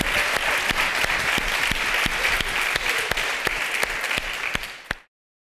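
Audience applauding, a dense steady clapping that thins out and then stops abruptly about five seconds in.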